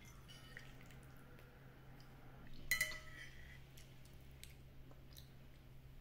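Quiet tableware handling: faint clicks of a metal ladle and spoon against a ceramic soup bowl and dishes, with one short ringing clink a little under halfway in, over a faint steady low hum.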